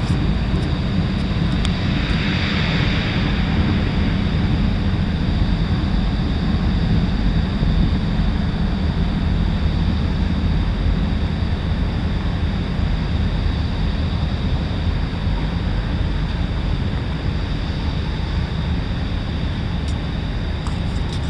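Steady low engine rumble, with wind noise on the microphone and a brief hissing swell about two seconds in.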